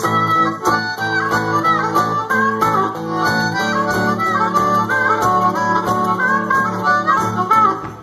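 Harmonica played into a microphone, a run of short, quickly changing notes over strummed acoustic guitar in a live band's amplified sound.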